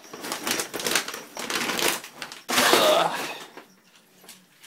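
Dry cat kibble rattling in quick clicks as it is poured into a metal bowl and scatters on a tile floor, loudest about two and a half seconds in and dying away about a second later.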